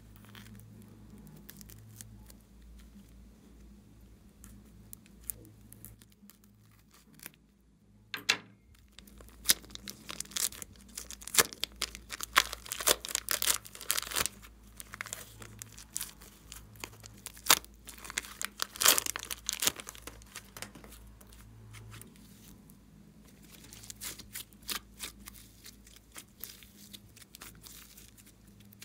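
Thin plastic piping bags crinkling and tearing as they are peeled off soft clay, in dense crackly bursts through the middle, with quieter handling before and after.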